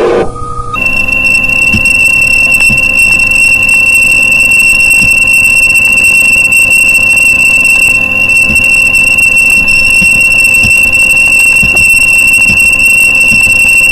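Loud, steady high-pitched electronic tone, one unbroken pitch with fainter steady hums beneath it, starting about a second in.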